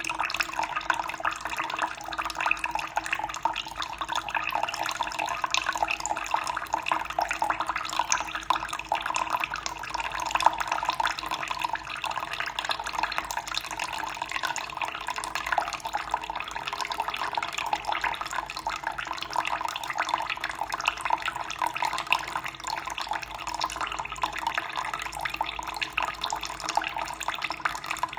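Running water, a continuous stream splashing steadily with no change in level.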